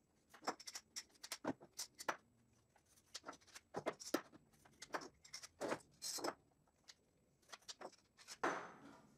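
Irregular light clicks and clacks of a cheap steel bar clamp being handled, its moving jaw slid and rattled along the metal guide bar. Near the end a louder knock as a clamp is set down on the wooden workbench.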